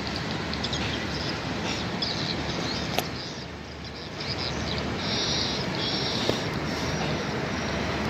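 Steady rumble of a Hitachi diesel-electric locomotive standing at a station platform, with birds chirping high over it and a single click about three seconds in.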